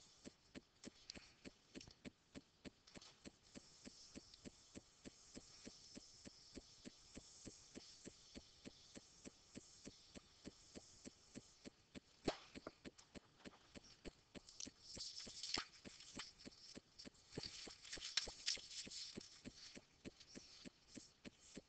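Near silence: faint room tone with a quick, regular ticking of about three a second, and a few brief rustling noises in the second half.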